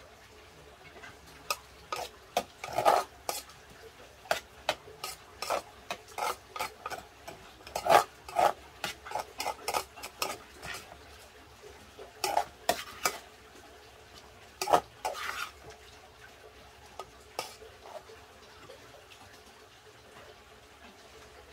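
Spoon clinking and scraping against a pot as rice is mixed and scooped, in irregular clusters of sharp strikes that thin out and stop a few seconds before the end.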